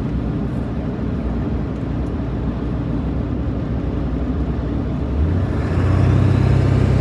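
Road and engine noise inside a moving vehicle, a steady low rumble. About five seconds in, a louder low drone sets in with a faint rising whine.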